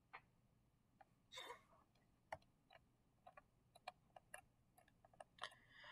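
Near silence with faint, scattered light clicks: a stylus tapping and scratching on a drawing tablet while a word is handwritten.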